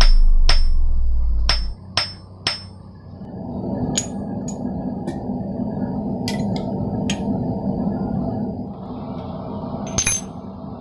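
Hand hammer striking steel on an anvil: about a dozen separate, irregular ringing blows, several close together in the first few seconds. A loud low rumble runs under the first second and a half, and a steady rushing noise sets in at about three seconds and continues under the later blows.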